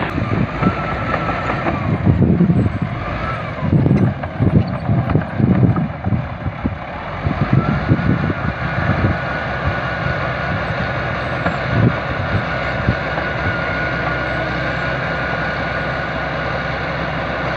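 SD13 crawler bulldozer's diesel engine running under load as the blade pushes soil, with uneven low thumping through the first half and a faint steady high whine from about nine seconds in.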